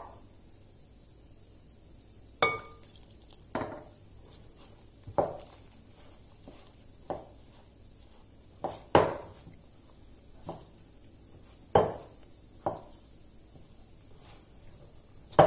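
A glass mixing bowl knocking and clinking as stiff dough is kneaded in it by hand. There are about ten irregular knocks, one every second or two, and one early knock rings the glass briefly.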